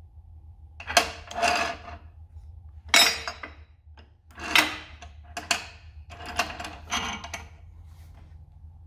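Metal tubing clanking and rattling against the chop saw's steel vise and base as it is handled and clamped: a string of sharp metal-on-metal clanks, each with a short ring, over a low steady hum.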